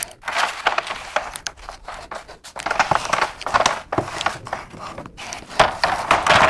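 Plastic fruit crates knocking and scraping against one another as they are lifted and stacked: an uneven run of hollow clatters and knocks.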